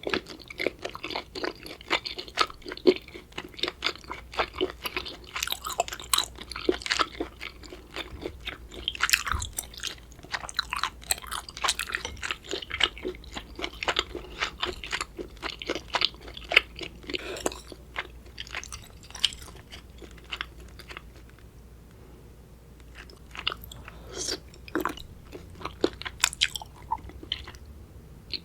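Close-miked chewing of raw seafood: rapid wet crunches and squelches, dense for most of the stretch, easing off for a few seconds, then picking up again near the end.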